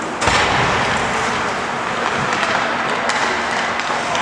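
Hockey skates scraping over rink ice as a steady noise, with scattered sharp clicks of sticks and puck. The noise jumps louder about a quarter second in.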